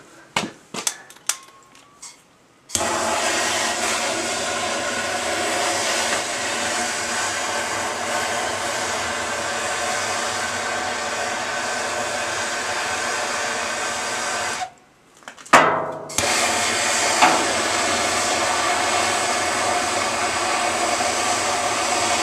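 A small electric blower motor running steadily with a whirring hum. It starts suddenly a few seconds in after some light knocks, is switched off for about a second and a half roughly two-thirds of the way through with a couple of clicks, then runs again.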